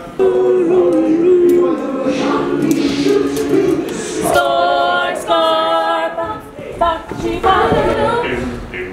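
A cappella ensemble of voices singing, standing in for both the orchestra and the vocal lines. A high voice holds two long notes about four and five seconds in.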